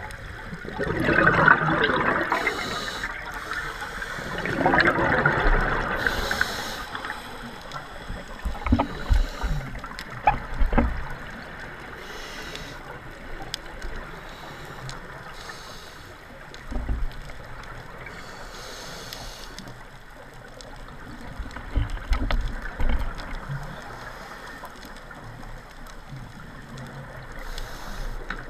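Scuba divers breathing through regulators underwater: gurgling bursts of exhaled bubbles, loudest twice in the first six seconds, with short hisses every few seconds and a few low knocks, heard through an underwater camera housing.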